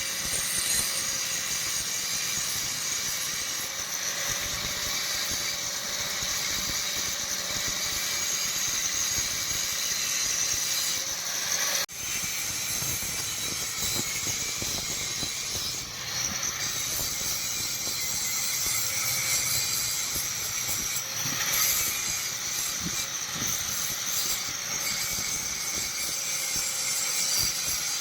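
A motor-driven workshop machine running steadily, with a hiss. The sound breaks off abruptly for a moment about twelve seconds in, then carries on.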